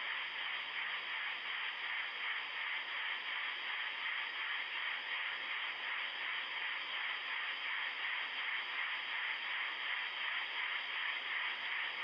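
Steady static-like hiss, bright and narrow in pitch, with a slight even pulsing.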